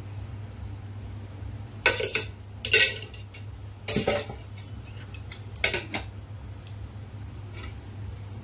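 Metal kitchen utensils clattering against pots, four short clanks spread over a few seconds, with a low steady hum underneath.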